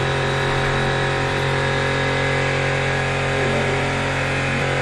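A steady machine hum, like a motor running at a constant speed, with a strong low drone that does not change.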